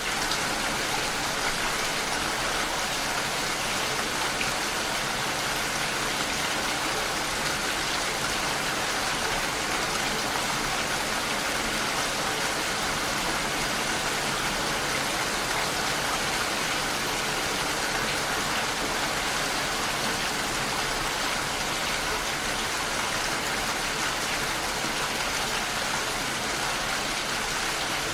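Steady rain hitting a window, an even, unbroken hiss.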